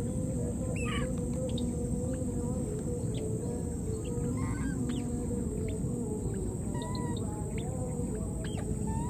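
Outdoor bird sounds: clucking like domestic fowl and short high chirps scattered throughout, over a steady background hiss.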